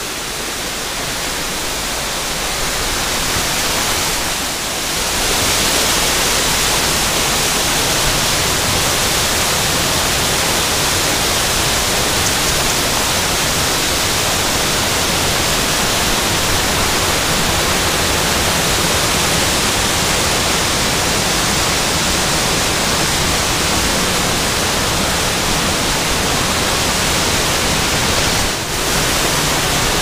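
Waterfall water rushing in a steady, unbroken wash of noise that grows louder over the first few seconds, then holds level.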